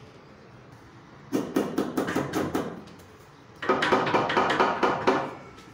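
Rubber mallet tapping a marble countertop slab to bed it in place: two runs of quick, sharp taps, about six a second, each run lasting over a second.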